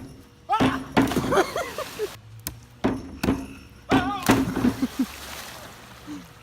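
Young men yelling without clear words, with several sharp knocks and thuds. Frogs croak in the background.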